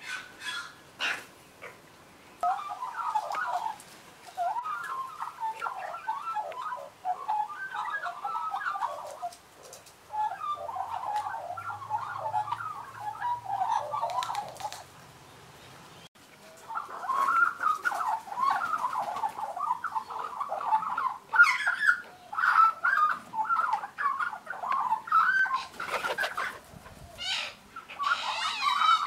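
Juvenile Australian magpies warbling and chattering in long, quick, varied runs, with a short pause about a third of the way through and a break about halfway. Sharp clicks mix in near the end.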